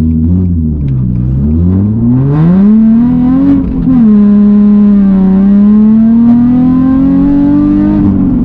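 Nissan 350Z's 3.5-litre V6 pulling hard through a loud exhaust with test pipes in place of the catalytic converters. The revs climb for a couple of seconds and drop sharply about three and a half seconds in as it changes gear. They then climb slowly again.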